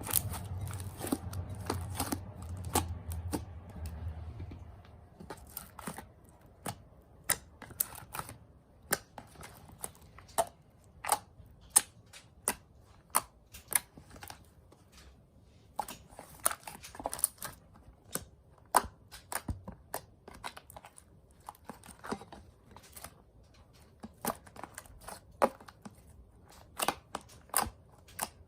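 Homemade slime being squeezed and stretched by hand, giving irregular sharp clicks and pops, with a low hum under the first few seconds.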